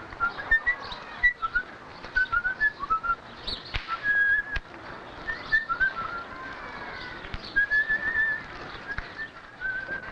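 A person whistling a tune: short sliding notes strung together with a few longer held ones, over faint street background with scattered light knocks.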